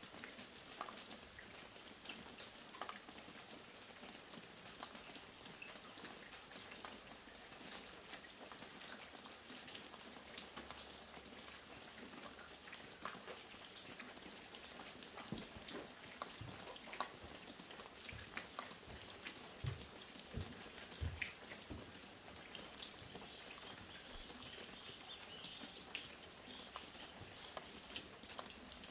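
Light rain falling steadily as a soft hiss, with scattered drops ticking and water dripping from a roof; a few duller, heavier drips land in the middle.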